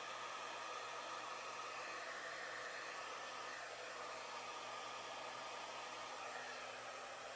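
Handheld hair dryer running on a medium fan setting with cool air, giving a steady rush of air with no change in speed.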